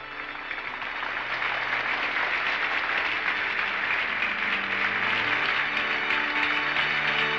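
A large crowd applauding and cheering, swelling up over the first couple of seconds and then holding steady, with a film score of long held notes beneath it.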